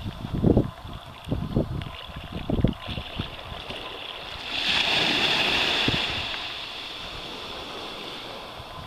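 Shallow seawater washing around the wader, with irregular low thumps on the camera microphone during the first three seconds. About four and a half seconds in, a hissing rush of water swells for about two seconds, then fades.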